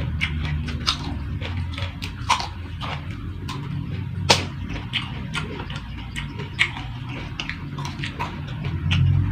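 Close-up chewing and crunching of food, with many small wet mouth clicks and a sharper crunch about four seconds in, over a low steady hum.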